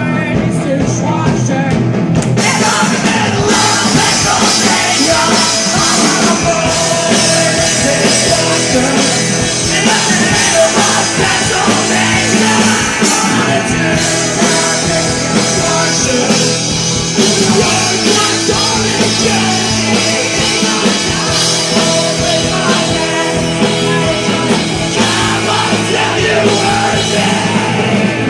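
Punk rock band playing live and loud, with sung and yelled vocals over the band.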